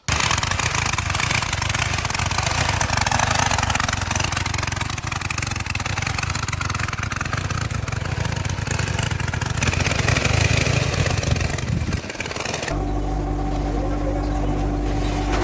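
Loud, steady running noise of cardboard-factory machinery. About 13 seconds in it switches abruptly to a different, steadier machine sound with a low, even hum.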